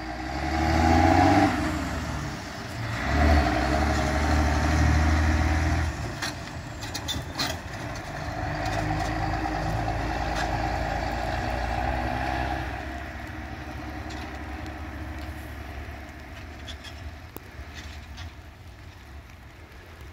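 Eight-wheel tipper lorry's diesel engine pulling away and accelerating through the gears: the engine note swells three times with short dips between for the gear changes, then fades as the lorry drives off.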